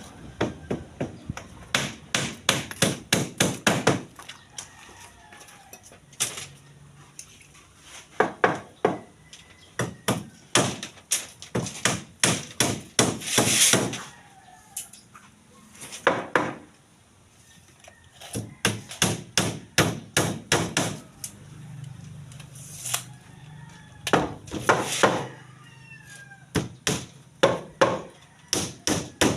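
Hammer blows in quick runs of several strikes, about four to five a second, with short pauses between the runs.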